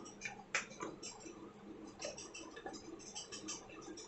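Plastic lid of a pull-cord vegetable chopper being fitted and twisted to lock: faint plastic clicks and scraping, with one sharper click about half a second in.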